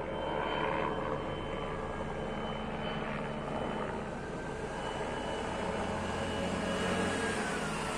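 Helicopter flying over at a distance, its rotor and engine running with a steady, even sound.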